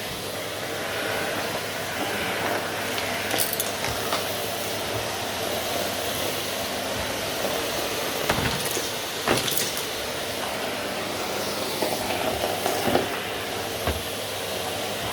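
Vacuum cleaner running steadily with a low hum and a rushing hiss, broken by a few sharp clicks and clinks.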